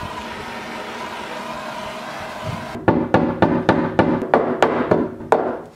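A hand torch hisses steadily, then a towel-wrapped hammer strikes the heated inner lip of a car's steel rear fender in a quick run of about ten blows, roughly four a second, each ringing briefly through the panel. The blows fold the fender lip inward to roll it for wheel clearance.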